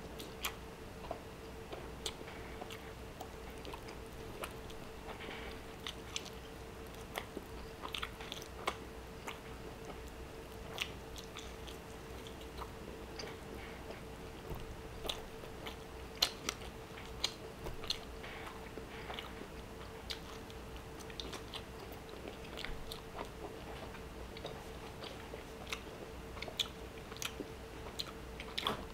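Close-miked chewing of juicy churrasco steak eaten by hand: irregular wet mouth clicks and smacks, some sharper than others. A faint steady hum runs underneath.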